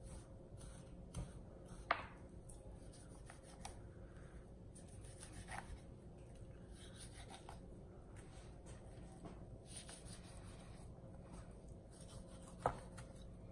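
Knife slicing through pork fat and skin on a wooden cutting board as the fat cap is trimmed from a raw pig leg: faint scraping and rubbing, with two sharper clicks, one about two seconds in and one near the end.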